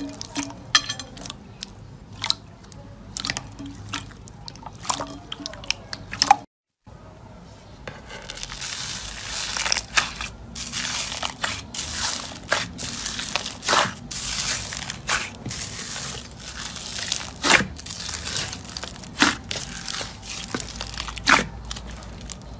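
Slime being squeezed and pressed by hand, giving a stream of sticky crackles and sharp clicks and pops. A brief cut to silence comes about six seconds in; after it the crackling is denser and louder.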